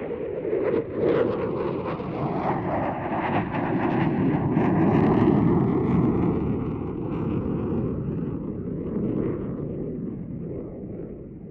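Eurofighter Typhoon's twin Eurojet EJ200 turbofans passing overhead. The loud jet noise swells to its loudest about halfway through, crackling, with a whooshing band that sweeps down and back up in pitch, then fades away near the end.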